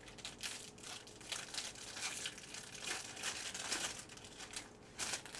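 Foil wrapper of a Bowman Draft Jumbo baseball card pack being torn open and crinkled: a run of irregular crackles and rips.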